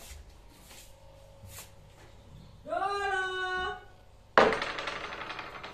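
A voice holds one steady note for about a second, then a sudden loud bang about four seconds in that dies away over about a second.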